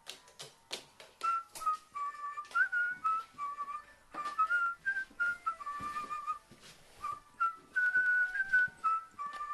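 Whistled melody stepping between a few short held notes, over scattered sharp clicks, most likely a background music track.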